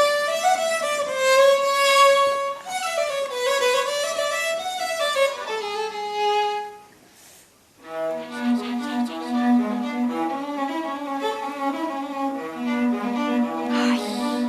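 Viola played with a bow: slow held notes with slides, a short pause about seven seconds in, then a livelier passage of shorter notes.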